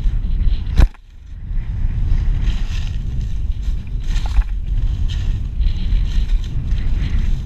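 Steady low rumbling noise of fast travel over snow on a moving camera, with one sharp knock a little under a second in.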